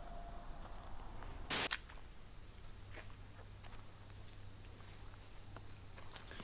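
Insects chirring steadily in high-pitched tones. About a second and a half in there is a brief burst of noise, with a few faint clicks and rustles.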